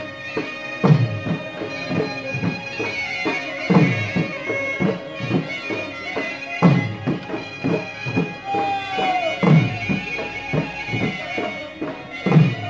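Traditional folk music: a reed wind instrument holds sustained high notes over a drum. The drum plays steady beats with a heavy stroke about every three seconds.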